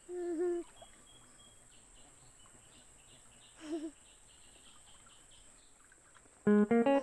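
Quiet riverside background with faint high chirps, broken by two short low calls: a steady one right at the start and a wavering one about halfway through. About half a second before the end, plucked guitar music starts and is the loudest sound.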